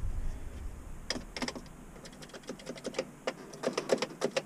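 Irregular light clicks and taps, several a second at times, from handling components inside a tower crane's switched-off electrical cabinet. A low rumble fades out in the first second or so.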